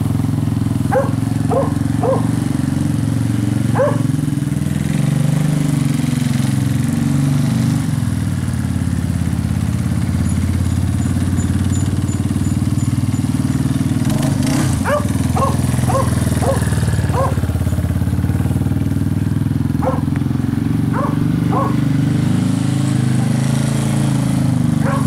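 ATV engine running steadily throughout. Over it a dog barks in short runs of sharp single barks: about four early on, about six around the middle and about three near the end.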